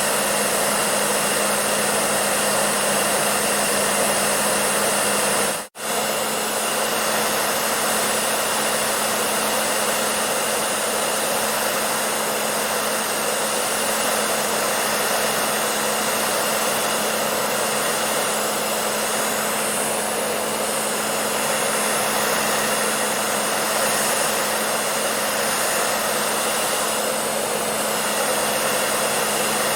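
Hair dryer running steadily: a constant airy blowing hiss over a low motor hum. It cuts out for an instant about six seconds in, then carries on unchanged.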